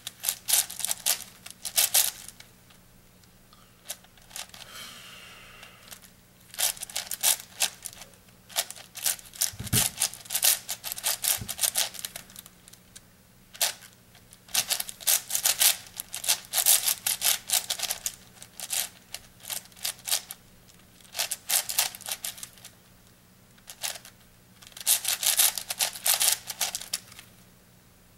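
Plastic layers of an 8x8 puzzle cube being turned by hand: fast runs of rattly clicks in bursts of a few seconds, with short pauses between them. A soft thump comes about ten seconds in.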